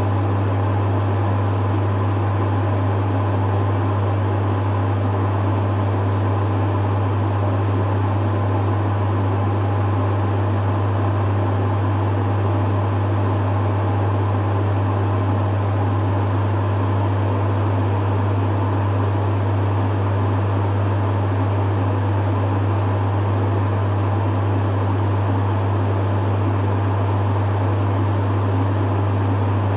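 Dehumidifier running steadily: a strong, even low hum under a constant rush of air from its fan.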